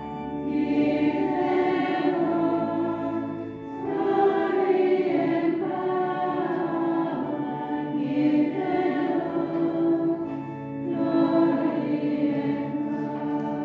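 A choir of Benedictine sisters singing together in four phrases of a few seconds each, over steady, held instrument chords.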